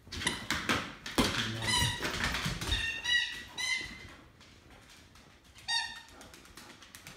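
A dog scrambling after a thrown ball on a hardwood floor: claws clicking and skittering, a run of thumps about a second in, and several short high squeaks over the next few seconds.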